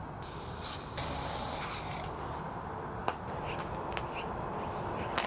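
Aerosol spray can spraying in two hisses, a short one and then one about a second long, followed by a few light footsteps on pavement.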